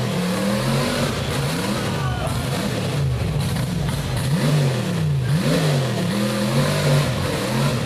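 Rock bouncer buggy's engine revving hard and dropping back again and again, roughly once a second, as the driver works the throttle up a steep rock hill.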